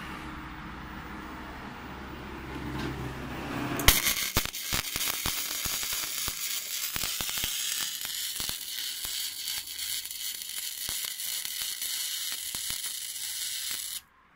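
Gasless flux-cored MIG welding arc from a Taiwan Power MIG200i welder: about four seconds in it strikes with a sharp crack, crackles and spits steadily for about ten seconds, then cuts off suddenly. A low steady hum is heard before the arc starts.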